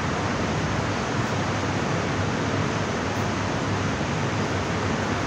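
Steady, even hiss of constant background noise, with no change through the pause.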